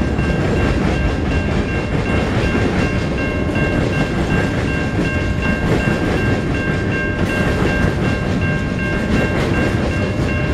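Freight train rolling past: a steady, loud rumble of wheels on rail, with a few thin high tones held over it.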